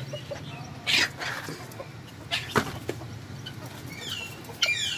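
Domestic chickens clucking and calling, with scattered taps and scuffs. Near the end comes a quick run of high, falling calls.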